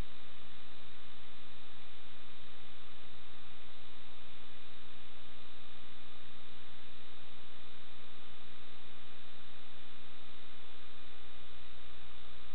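Steady electrical hum with a layer of hiss, unchanging throughout, with no distinct knocks or machine sounds standing out.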